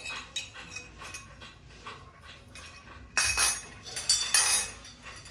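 Brass kitchen utensils clinking and knocking against one another as they are handled: a run of light taps, then two louder ringing clatters about three and four seconds in.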